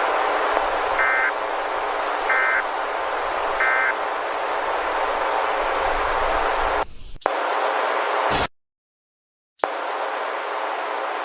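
Steady radio-style static hiss with three short beeps about 1.3 s apart. About seven seconds in the static breaks up, a brief harsh burst follows, then a second of dead silence before the static returns.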